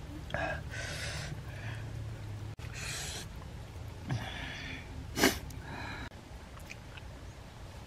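Food being worked by hand: short bursts of wet squishing and rustling as grilled fish flesh is pulled apart and then shredded salad is tossed in its dressing. There is one sharp click about five seconds in.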